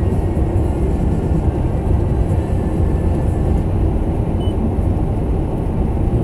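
Steady low rumble of tyre, road and engine noise inside a Toyota Corolla's cabin, cruising along a wintry motorway.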